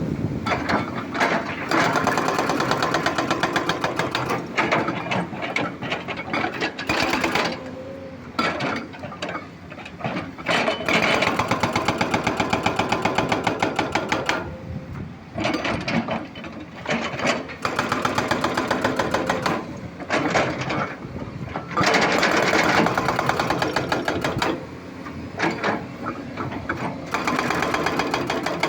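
Excavator at work: a rapid, steady mechanical clatter that swells and drops every few seconds.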